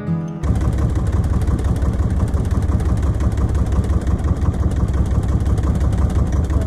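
Acoustic guitar music cuts off about half a second in, giving way to a small boat's single-cylinder engine running steadily at low speed, a loud, fast, even run of firing pulses.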